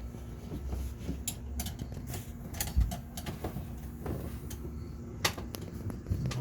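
Scattered clicks and knocks of a rear headrest being worked into its mounting hooks, with one heavier thump a little under three seconds in.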